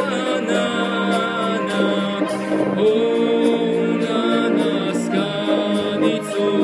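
A young man singing a slow song, holding long notes and moving from note to note.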